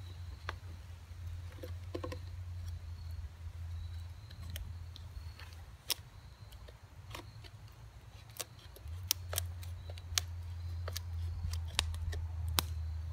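Bow drill being worked: the bow's cord drives a wooden spindle back and forth on a fireboard, its top turning in the divot of a stone used as the bearing block, being tried out for the job. Scattered sharp clicks and ticks over a low steady rumble that drops away for a few seconds in the middle.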